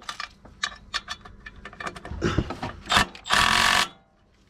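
Hand tools clicking and rattling against metal while gearbox bell-housing bolts are fitted, then a loud burst of about half a second near the end.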